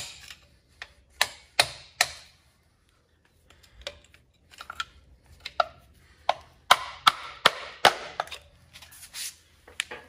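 Hammer blows on a tool held against the back of a Dana 60 front axle's vacuum-hub axle seal, driving the stuck seal out so the axle shaft can come free. Sharp metal strikes with a short ring: about four hard blows in the first two seconds, a lull, light taps, then another run of hard blows past the middle.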